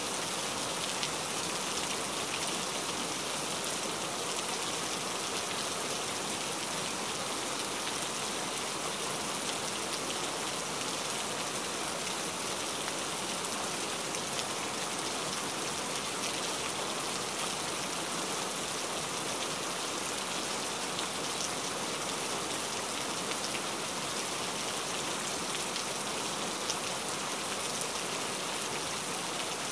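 Steady rain falling: an even, unbroken hiss with a fine patter of drops.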